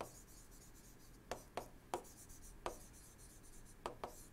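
Stylus writing on a tablet screen: about half a dozen faint, sharp taps and light scratches as words are handwritten.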